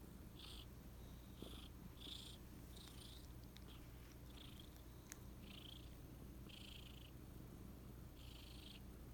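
A cat's faint breathing: short hissing breaths, roughly one a second. The owner wonders whether it is a slight wheeze, with asthma or pneumonia in mind.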